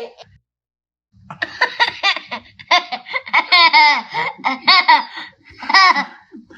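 A baby laughing in a run of high-pitched giggles and squeals, starting about a second in after a short silence and breaking into quick repeated bursts.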